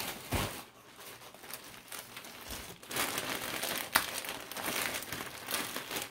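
Clear plastic packaging crinkling as it is handled and pulled open by hand, busier in the second half, with one sharp snap about four seconds in.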